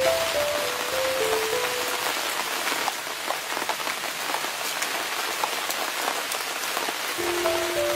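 Food sizzling in a hot pan: a steady hiss with many small pops and crackles. Background music plays a short stepped melody at the start and again near the end.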